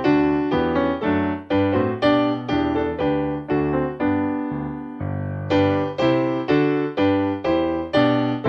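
Solo piano music: slow notes and chords struck about twice a second, each fading before the next, with one chord held longer about four seconds in.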